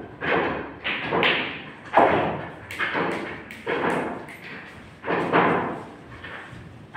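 A run of thuds and knocks echoing in a large room, roughly one every half second to second. Among them are a few sharp clacks of pool balls striking.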